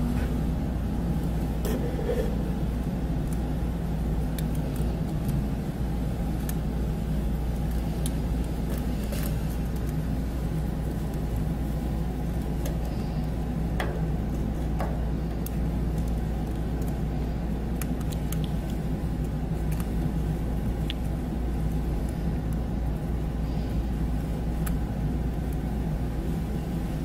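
A steady low rumble of background noise, with small scattered clicks and ticks from a chinchilla gnawing and handling a cholla-wood chew toy.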